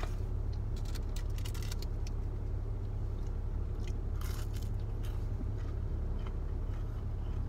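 Crunchy bites and chewing of a fried spicy chicken nugget, a cluster of crunches in the first two seconds and another about four seconds in, over a steady low hum from the idling car with its air conditioning on.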